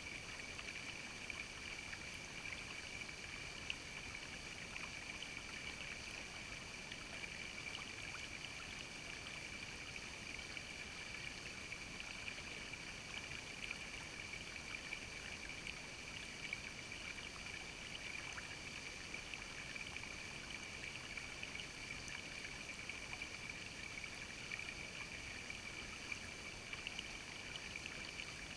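Shallow creek water running and trickling over rocks: a steady rushing with small, scattered splashy ticks.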